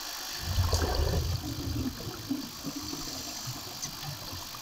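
Underwater sound in a diving pool: a steady low rumble with irregular bubbling from the divers' exhaled air.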